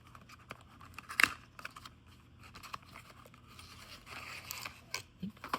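Small cardboard box being opened and its packaging handled: scattered clicks, scrapes and rustling, with one sharper snap about a second in.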